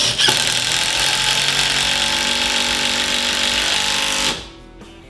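Makita 18V brushless cordless impact driver driving a lag screw into a block of wood, starting sharply and running steadily under load for about four seconds before stopping.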